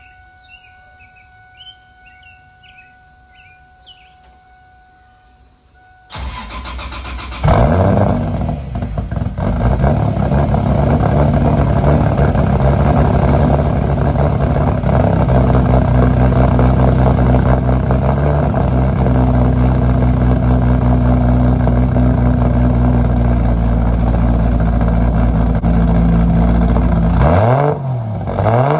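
Toyota 1JZ-GTE 2.5-litre inline-six, fitted with a single large turbo and a full 4-inch turboback exhaust, cold-started. The starter cranks for about a second and a half before the engine catches loudly and settles into a steady fast cold idle that shifts down in steps. Near the end it is revved up and back down.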